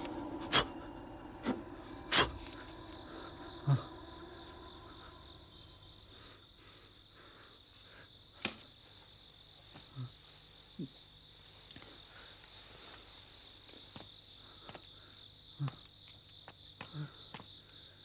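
Crickets chirring steadily, starting about two seconds in, with a handful of sharp knocks scattered through, the loudest in the first few seconds.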